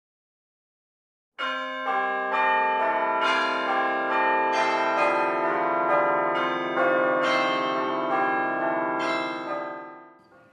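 Church bells pealing: overlapping strikes come about every half second and hang over a long ringing wash. It begins after about a second and a half of silence and fades away near the end.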